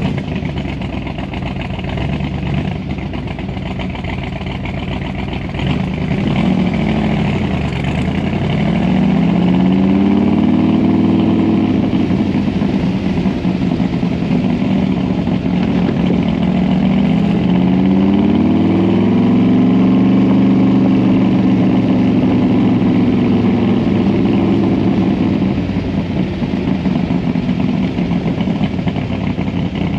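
Cobra replica's 427 FE side-oiler V8 on eight-stack Weber carburetors running while driving: low and steady at first, then climbing in pitch and loudness twice with a dip between, holding a higher steady note, and easing off near the end.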